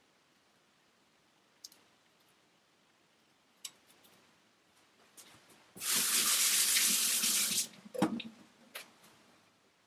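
Kitchen tap turned on and run for just under two seconds, then shut off sharply, followed by a couple of knocks. Before it, a few faint clicks from a knife cutting strawberries by hand.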